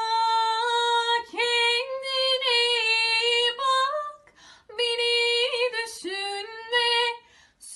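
A woman singing unaccompanied, holding long notes with ornamented turns and wavers. She sings two phrases, with a short breath between them about four seconds in.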